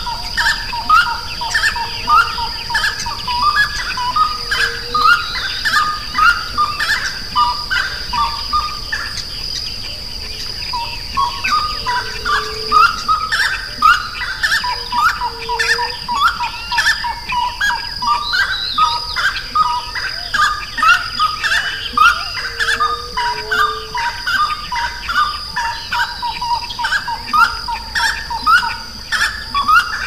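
Many birds calling together: short rising notes repeated a few times a second, with a brief lull about ten seconds in, over a steady high-pitched tone and a few lower notes.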